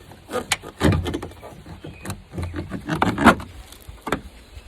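Irregular knocks, clicks and scraping as an old side mirror is worked loose and pulled off a 1992 GMC pickup's door, with the loudest knock a little past three seconds in.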